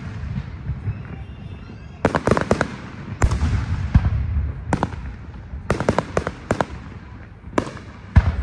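Aerial fireworks shells bursting overhead, about two seconds in and then on and off: a string of sharp bangs, some in quick clusters, each followed by a low rolling rumble.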